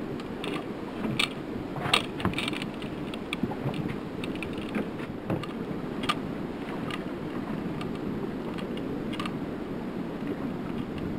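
Steady wind and water noise around a small aluminium fishing boat at sea, with scattered clicks and knocks of fishing tackle being handled in the boat, most of them in the first half.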